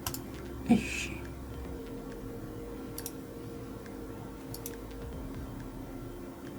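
A few sharp computer mouse clicks, spaced seconds apart, over a steady low room hum and faint soft background music. About a second in there is a short breathy noise, the loudest sound here.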